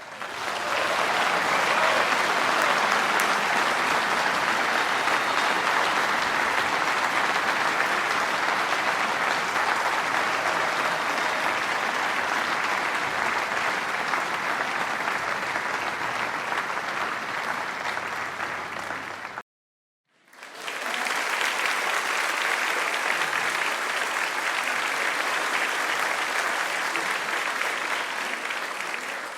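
Large audience applauding, dense continuous clapping. It cuts off abruptly about two-thirds through, and after a second of silence another round of applause starts and fades away near the end.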